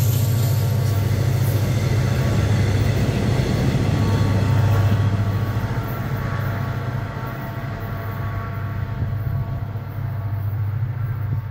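Train of steel ballast hopper wagons rolling past on the rails, with the Korail 4400-class diesel locomotive's engine droning at full throttle (notch 8) ahead of them. About five seconds in the last wagon goes by and the sound slowly fades as the train moves away.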